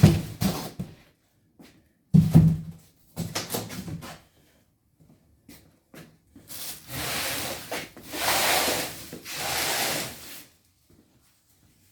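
Cardboard box being pulled away from a packaged generator: a couple of thumps and knocks in the first few seconds, then three long scraping rubs of cardboard sliding against the packing.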